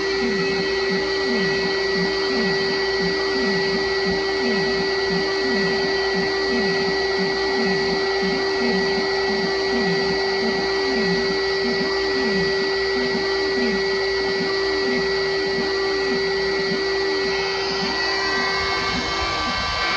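A loud, steady electric-motor machine, like a shop vacuum, running with a continuous whine and hiss, with a low tone that rises and falls over and over, about once a second. A steady mid-pitched whine in it drops out near the end.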